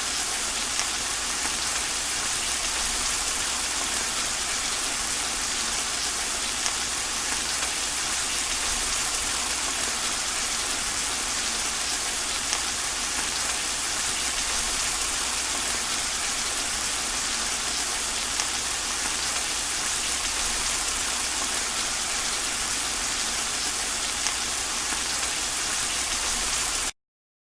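Steady rain falling, an even continuous hiss that cuts off suddenly near the end.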